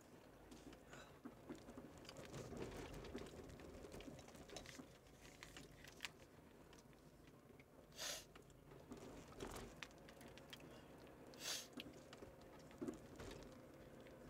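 Near silence inside a car: faint rustling and small clicks, with two brief soft hissing sounds about eight and eleven and a half seconds in.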